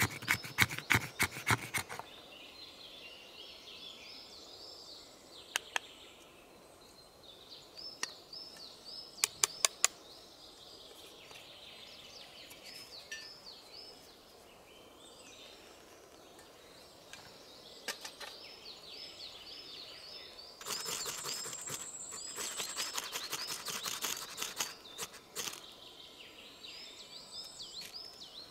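A knife blade scraping a stick into fine tinder dust and shavings, in quick runs of strokes: a short run at the start and a longer one of several seconds past the middle, with a few single scrapes between. Small birds sing repeatedly in the background throughout.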